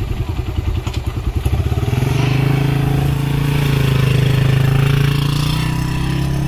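Suzuki Raider 150 single-cylinder motorcycle engine idling with a quick pulsing beat. About two seconds in it picks up to a smooth, stronger running note as the bike pulls away, swells over the next few seconds, then eases slightly.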